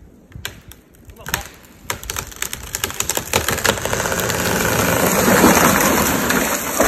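A cut tree falling: scattered cracks and snaps of wood build into a rising crash of branches through the surrounding trees, ending in a heavy thump.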